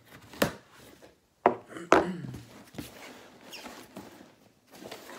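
Packing tape on a cardboard shipping box being cut with a small blade: a few sharp scrapes and knocks in the first two seconds, then lighter scraping and rubbing as the box is handled.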